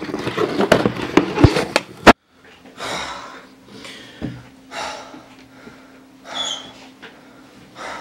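Rough clattering and rustling handling noise from a camera carried in flight, ending in one sharp, loud bang about two seconds in. Then a young man panting hard, with loud breaths about once a second, out of breath after running.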